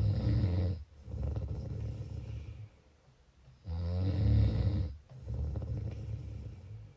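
A sleeper snoring steadily through two breaths, about four seconds apart. Each breath has a short, loud, rattling snore followed by a longer, quieter breath sound.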